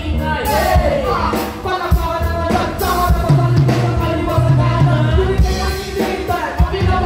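Live band music with vocalists rapping and singing into microphones over a drum kit and keyboard, played loud through a stage PA, with a steady drum beat and heavy low end.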